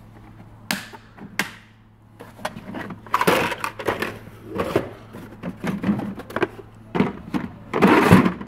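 Moulded plastic tool cases being handled in a metal tool chest drawer. Two sharp clicks as a case is latched shut, then from about three seconds in a run of clattering, sliding and scraping as the cases are shifted and one is lifted out.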